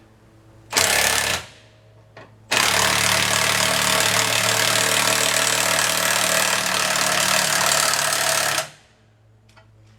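Impact wrench hammering: a short burst about a second in, then a steady run of about six seconds that stops near the end, loosening a lug nut.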